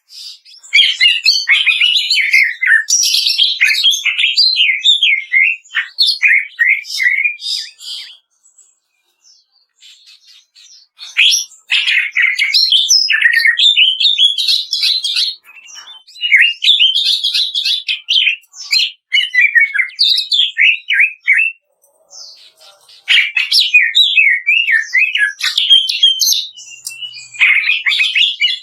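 Cucak ijo (green leafbird) singing its fast, chattering "kretekan" song: rapid, varied, up-and-down notes run together in long phrases of several seconds, broken by short pauses about 8, 15 and 22 seconds in.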